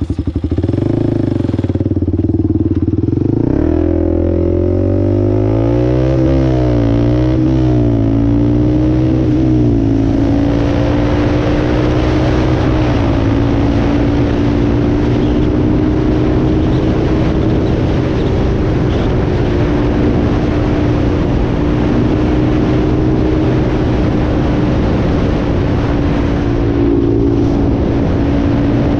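Honda 400EX ATV's single-cylinder four-stroke engine pulling hard through the gears, its revs climbing and dropping at each shift for about the first ten seconds, then held steady at high speed. An even rush of wind and road noise rises along with it.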